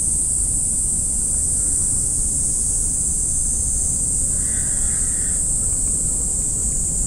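Steady high-pitched drone with a low rumble of wind on the microphone; a faint brief sound about four and a half seconds in.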